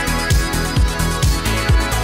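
Background electronic dance music with a steady kick-drum beat, about two beats a second.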